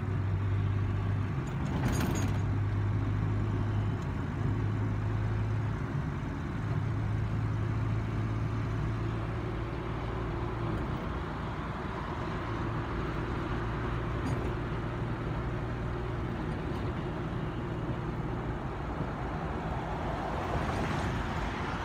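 Road and engine noise inside a moving car's cabin at highway speed: a steady rush of tyre and wind noise with a low engine hum that comes and goes. There is a brief click about two seconds in.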